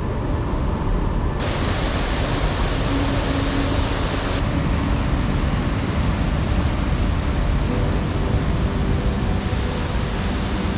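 Waterfall: a heavy, steady rush of falling water. Its tone changes abruptly a couple of times.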